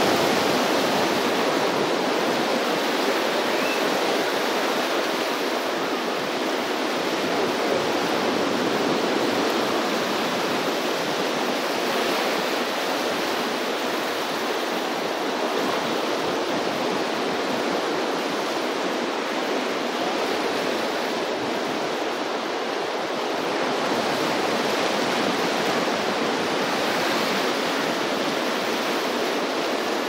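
Sea surf from swell waves breaking on the beach: a continuous rushing wash that rises a little in level now and then.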